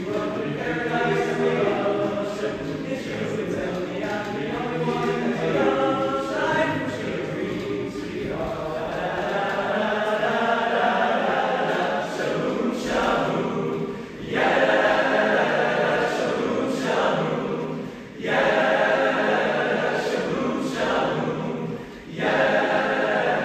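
Young men's choir singing a doo-wop song a cappella in close harmony. From about fourteen seconds in, the choir sings loud full chords in phrases about four seconds long, each broken by a short breath.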